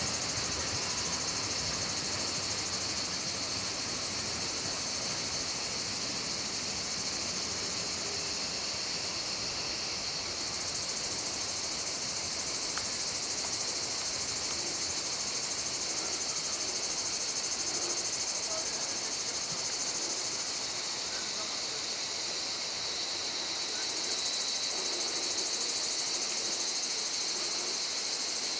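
Steady, high-pitched insect chorus. The low rumble of a receding container train fades out over the first few seconds.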